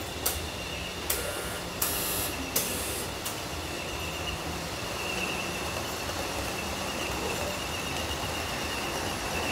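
Model trains running on a large layout: a steady low hum with a thin high whine, and five sharp clicks in the first few seconds, about one every three quarters of a second.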